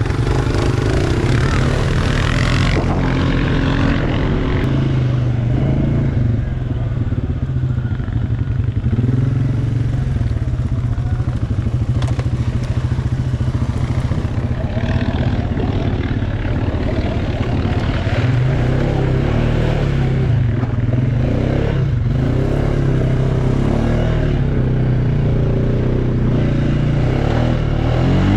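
ATV engine running steadily while riding, its pitch drifting up and down with the throttle.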